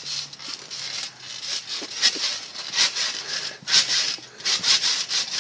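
Bouncing on a trampoline: a rhythmic swishing noise that swells roughly once a second with each bounce.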